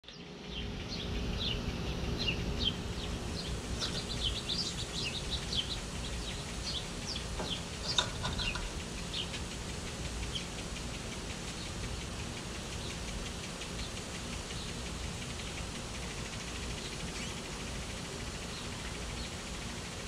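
Many small birds chirping, with quick high notes that are busiest in the first half and thin out later, and one sharp louder note about eight seconds in. A steady low background noise runs underneath.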